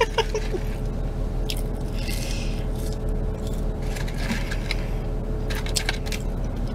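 Chewing and soft rustles of a paper fry carton as french fries are picked out and eaten, with a few small clicks. A steady low hum runs underneath in the car cabin.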